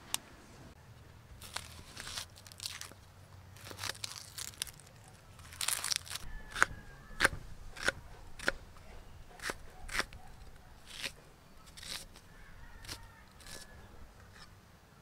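Kitchen knife cutting an onion on a wooden chopping board: a series of irregular crunching cuts, each ending in a knock of the blade on the board.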